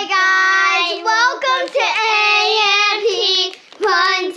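Children singing in long, drawn-out held notes, with two brief breaks, about a second and a half in and near the end.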